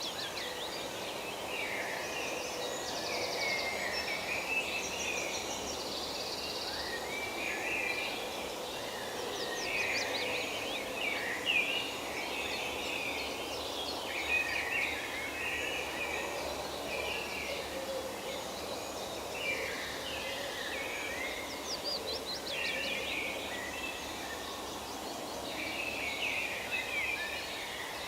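Forest ambience: several birds singing and calling over one another, with quick chirps, trills and rapid runs of repeated notes, over a steady background hiss.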